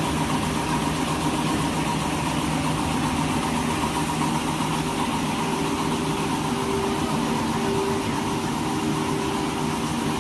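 Z-fold hand towel paper production line running: a steady machine hum with several held tones, one of them flickering on and off in the second half.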